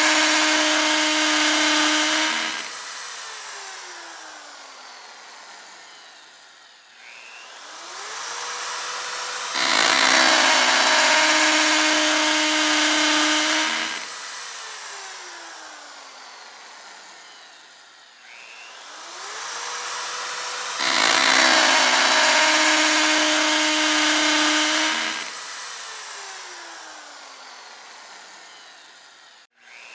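Electric power drill running at full speed with a steady whine for a few seconds, then spinning down with a slowly falling pitch, then revving back up. The cycle repeats three times, about every eleven seconds.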